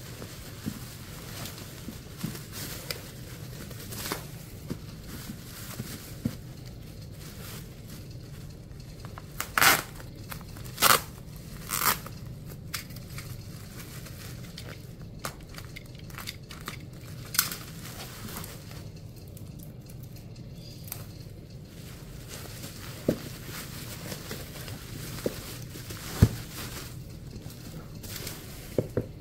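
Hands unwrapping a parcel: bubble wrap and packing tape crinkling and rustling, with three short loud rips about ten to twelve seconds in and a few light taps later, over a steady low hum.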